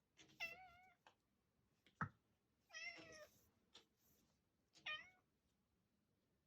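Kitten meowing three times, short high meows with a wavering pitch, with a sharp knock about two seconds in.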